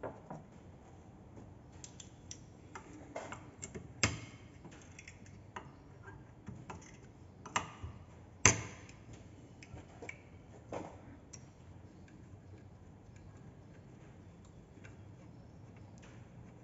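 Scattered metallic clicks and knocks of hand tools and parts as a car starter motor is clamped and worked on for disassembly, with the sharpest knock about halfway through.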